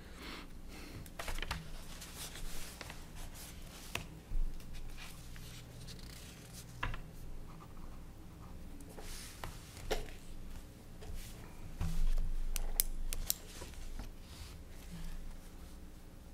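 Papers rustling and pens scratching as documents are handled and signed, with scattered small knocks and clicks over a low steady hum.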